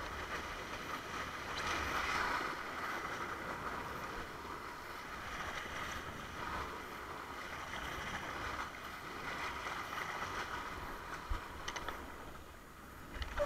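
Water rushing and hissing past a windsurf longboard's hull as it sails, in a steady wash that swells and eases, over a low unsteady rumble.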